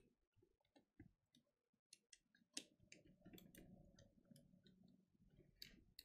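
Faint, scattered plastic clicks and scrapes of a metal switch puller working at Outemu Blue mechanical keyboard switches that are hard to pull from their sockets.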